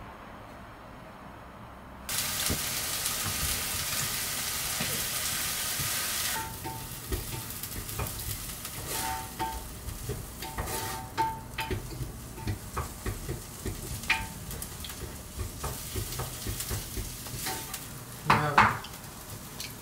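Food frying in a hot pan: a loud sizzle starts suddenly about two seconds in as something goes into the pan, then settles into a quieter sizzle with the clicks and scrapes of stirring. Two short, sharp, loud sounds come near the end.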